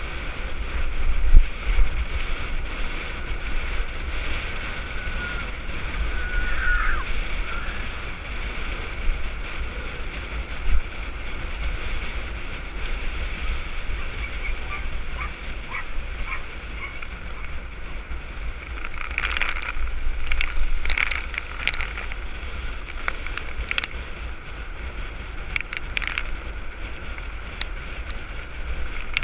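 Wind buffeting the microphone of a handlebar-mounted camera on a mountain bike ridden fast in a group, over the steady rush of tyres on a paved track. Around twenty seconds in comes a cluster of sharp rattling clicks from the bike.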